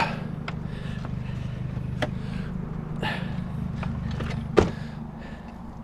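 Vehicle engine idling with a steady low hum, with a few sharp knocks over it, the loudest about four and a half seconds in.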